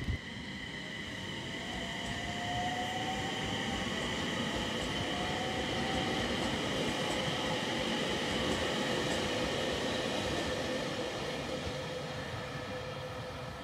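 JR East E721 series 1000 electric multiple unit running past along the platform track. Its inverter and traction motors give a steady whine over the rumble of wheels on rail, growing louder toward the middle and fading near the end.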